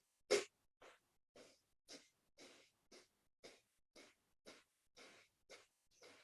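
Kapalabhati breathing: short, forceful exhalations through the nose at about two a second in a steady rhythm. The first is loud and the rest softer.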